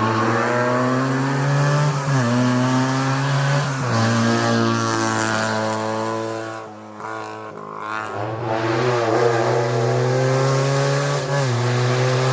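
Historic racing car's engine under hard acceleration, its pitch climbing through each gear and dropping sharply at gear changes about two, four and eleven seconds in. It eases off briefly in the middle, then builds again.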